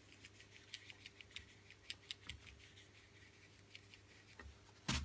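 Soft acrylic blending brush being worked over a canvas, its bristles making faint, irregular scratchy ticks as wet paint is blended. A louder burst of brushing comes near the end.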